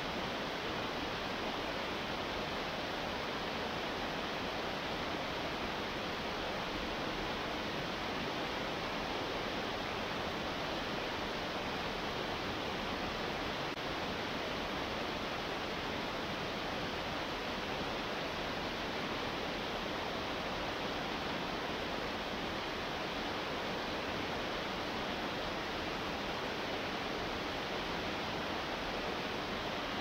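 Small waterfall cascading over rocks into a stream: a steady, even rush of falling water with no change in level.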